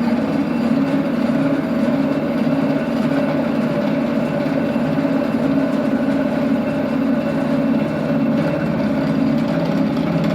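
Amen universal milling machine running steadily, a constant mechanical hum with a steady whine over it.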